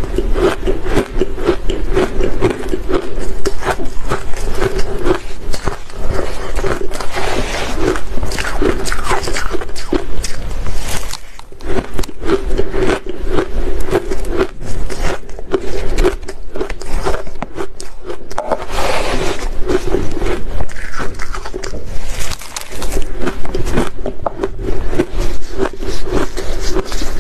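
Close-miked crunching and chewing of mouthfuls of purple shaved ice, with a spoon scraping into the ice mound. There are many crisp crunches in quick, uneven succession.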